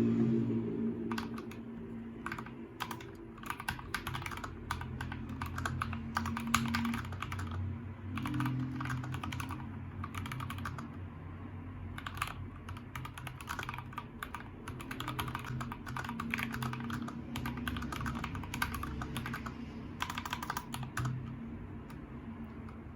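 Typing on a MIIIW Art Series mechanical keyboard with Gateron G Yellow Pro linear switches and PBT keycaps: runs of rapid key clacks broken by short pauses.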